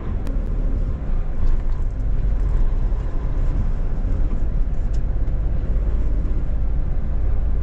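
Steady engine and road rumble inside the cab of a large truck driving on an expressway, deep and even, with a few faint ticks.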